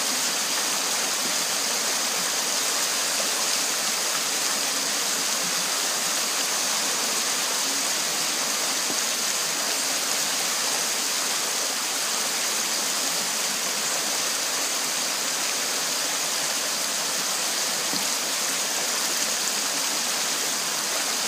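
Small river rapid: water rushing steadily over rocks, an even, unbroken hiss.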